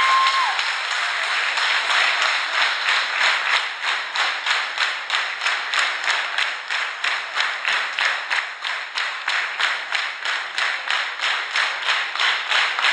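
A large audience applauding, the scattered clapping settling after a few seconds into rhythmic clapping in unison at about three claps a second.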